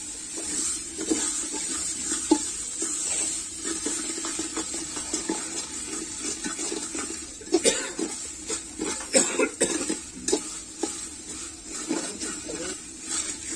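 A metal ladle stirring and scraping cooking chicken curry in an aluminium pot over a wood fire, with scattered knocks of the ladle against the pot, most of them in the second half, over a steady high hiss.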